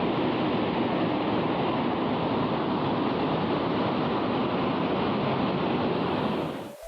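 Steady rushing noise with no rhythm or pitch, fading out just before the end.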